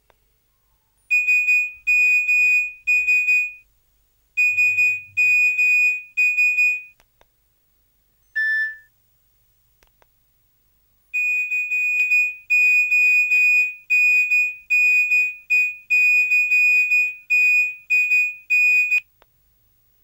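Smartphone sounding a high electronic beep in repeated pulses about half a second long, in three runs, with one short lower beep between the second and third runs.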